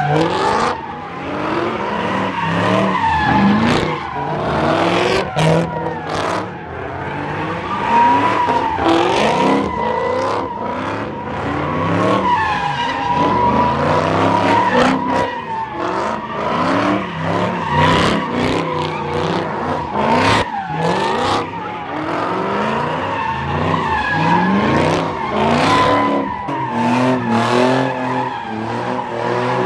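Cars, among them a Dodge Charger, doing donuts and burnouts: engines revving up and down over and over while the tyres squeal almost without a break.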